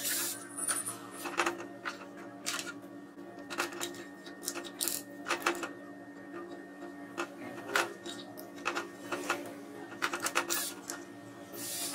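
Scattered light clicks and clinks of small screws and the saw's plastic handle parts being handled during disassembly, over steady background music.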